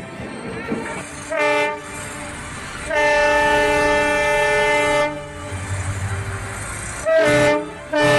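Locomotive horn sounding as the train approaches: a short blast, a long blast of about two seconds, then another short blast near the end, with the train's running noise and a low engine rumble between them.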